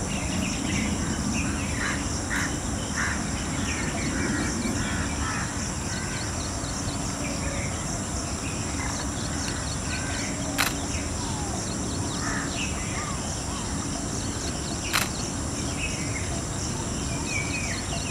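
Woodland ambience: assorted small birds chirping in short calls over a steady high-pitched insect drone, with two sharp clicks, one about ten seconds in and one about fifteen.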